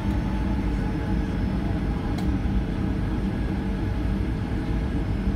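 Steady low rumble of a Boeing 737-700's CFM56 turbofans and airframe heard inside the cabin while the plane taxis, with a steady hum running through it.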